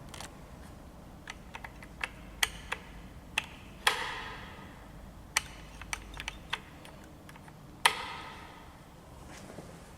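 Irregular sharp clicks, like push buttons being pressed on an Otis Gen2 lift, with two louder knocks about four seconds and eight seconds in that ring briefly.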